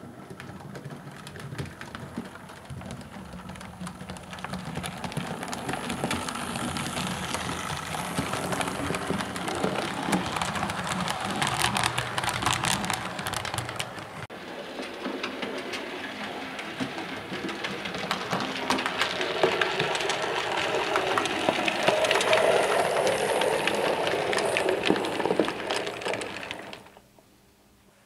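Model railway locomotive, the 4MT Standard tank, running along the layout track: a steady mechanical run full of rapid wheel and rail clicks. It swells and fades as it passes and stops abruptly near the end.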